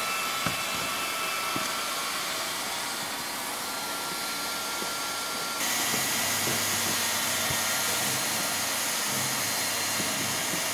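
Leister Triac ST hand-held hot-air plastic welder running, its blower giving a steady hiss of hot air. A little over halfway through the hiss steps up, louder and brighter.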